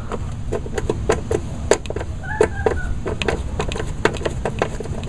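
Ratchet with a 5/16-inch socket on an extension clicking in quick, uneven strokes as it backs out the bolt holding the mower's belt cover. A short squeak sounds near the middle.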